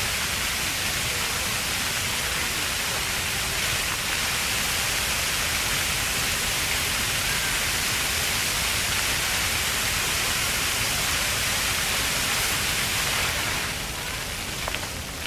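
Water jets of a park's ground-level floor fountain splashing, a steady hissing spray that falls away abruptly near the end.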